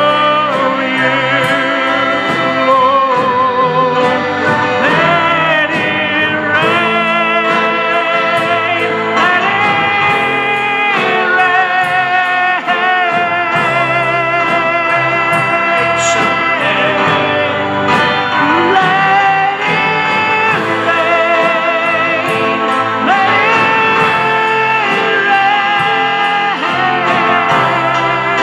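Live church worship music: a man singing lead into a microphone with a group of women's voices, backed by keyboard and electric bass guitar. The singing wavers with vibrato over a steady accompaniment.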